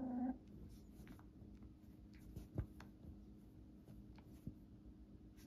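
A Cavadoodle puppy playing with a plush toy on a fleece dog bed: faint scattered scratching and tapping, with one sharper knock about two and a half seconds in. A short puppy growl ends just as it begins.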